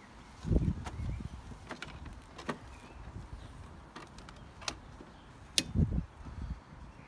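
Scattered sharp plastic clicks and two dull knocks, one about half a second in and one near six seconds, as the plastic fan shroud at the top of the radiator is pressed and clipped into place.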